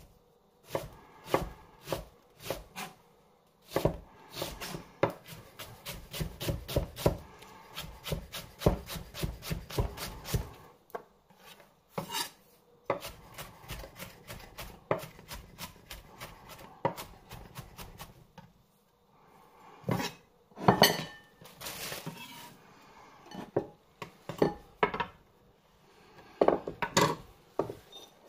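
A kitchen knife finely chopping red onion on a chopping board: fast runs of quick knife strikes with short pauses between, and a few louder, more spaced knocks in the later part.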